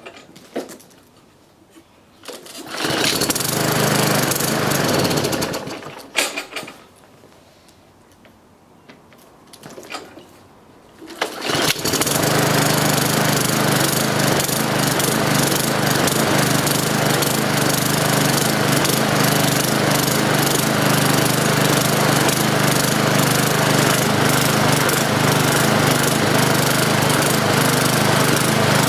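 Briggs & Stratton engine on a Qualcast walk-behind lawn mower being pull-started: it runs for about three seconds and stops, then starts again about twelve seconds in and keeps running. The engine kicks back on the pull and revs up and down, which the owner takes as a telltale sign of a sheared flywheel key.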